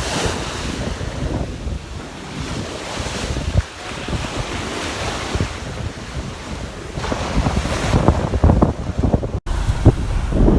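Ocean surf washing in, with wind gusting on the microphone.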